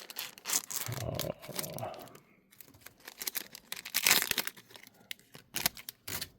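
A trading card pack's wrapper being ripped open by hand: crinkling with a run of sharp tearing rips, the loudest about four seconds in.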